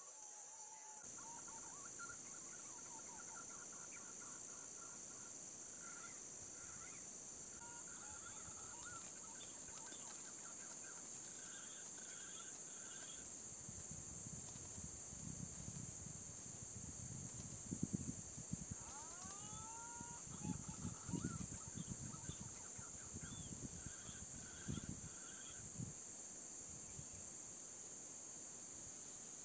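A steady high insect drone runs under whistled calls of punai green pigeons, short notes with a few rising whistles past the middle. Low rustling thumps come in the second half.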